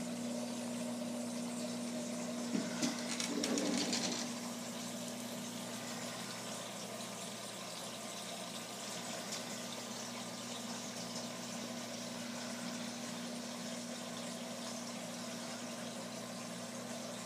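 Steady hum and water noise of aquarium pumps and circulating water. Two short knocks come about two and a half seconds in, followed by a burst of noise about a second long.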